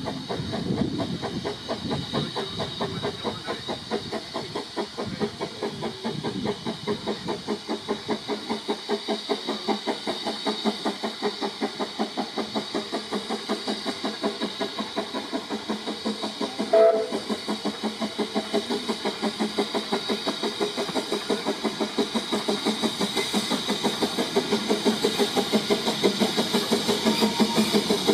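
Narrow-gauge steam tank locomotive hauling a train, its exhaust beating evenly about three times a second and growing louder as it approaches. About two-thirds of the way through there is a brief whistle blast.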